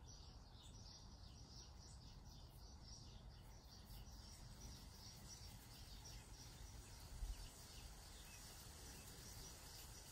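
Near silence: faint outdoor ambience with a steady soft high chirping and a low background rumble, and one brief low thump about seven seconds in.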